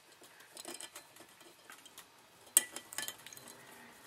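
Small steel parts of a Walther P-38 pistol slide clicking and scraping as the loaded chamber indicator is worked in behind its little spring with a pin tool. One sharp metallic click comes about two and a half seconds in, with a few smaller clicks just after.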